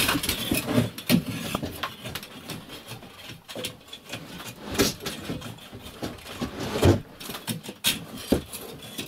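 Metal poker scraping and knocking inside a brick stove's flue, loosening soot and debris during a soot clean-out: irregular knocks and scrapes, with a few sharper hits.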